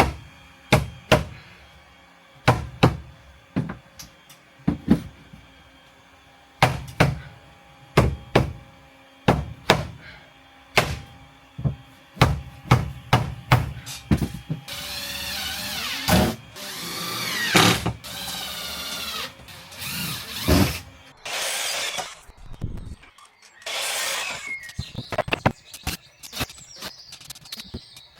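Sharp knocks on wood, one or two at a time about a second apart, as wooden ceiling panels are worked into place. About halfway through, a power drill starts running in several short bursts, its pitch shifting as it comes under load, like screws being driven into the panels.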